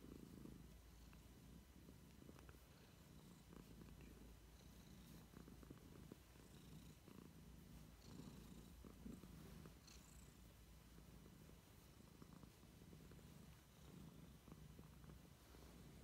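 Tabby cat purring faintly, a low rumble that swells and fades every second or two.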